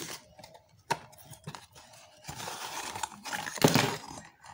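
A box being opened and its packaging handled. A few sharp clicks come first, then a longer rustling, tearing stretch a little over two seconds in, with a louder scrape near the end.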